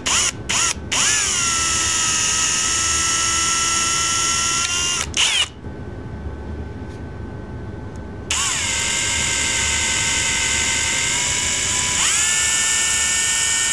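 Cordless drill boring out the plastic nipple on the bottom of a coolant overflow reservoir with a small twist bit. A few quick trigger blips, then a steady motor whine for about four seconds; after a pause of a few seconds it runs again for longer, its pitch stepping up near the end.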